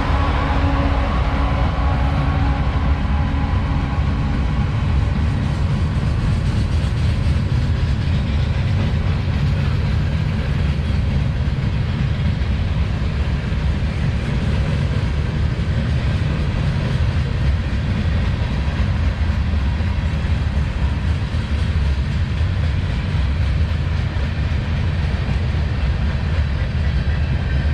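CSX manifest freight train rolling past: a steady, loud rumble of wheels on rail. Faint steady tones fade out in the first few seconds.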